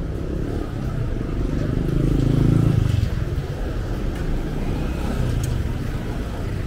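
Street traffic: a motor vehicle's engine passes close, loudest about two to three seconds in, over a continuous rumble of traffic.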